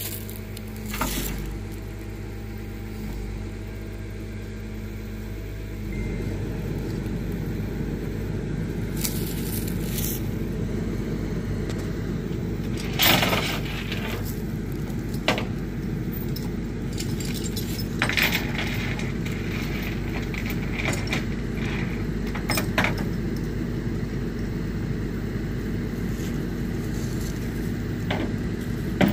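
Tow truck's engine idling steadily, its hum rising a little about six seconds in, with a handful of sharp metallic clanks and rattles scattered through the second half.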